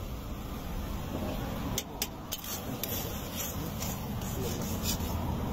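Steel spatula scraping and stirring through an egg-and-noodle mixture in a large iron pan, with a few sharp metal clinks in the second half, over steady background noise.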